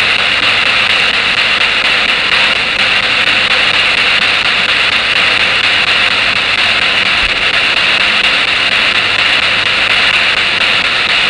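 Spirit box radio sweeping, giving a steady loud hiss of radio static with no clear words in it.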